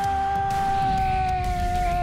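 A long, steady, held yell from a character's voice, with background music underneath.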